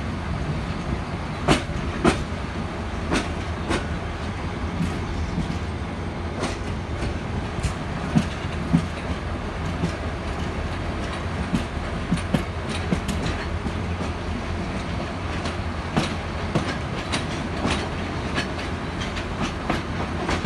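PT INKA-built passenger coach wheels running along the track, heard at the open coach window. There is a steady low rumble, broken by irregular sharp clicks and clanks as the wheels cross rail joints, the loudest about one and a half, two and eight and a half seconds in.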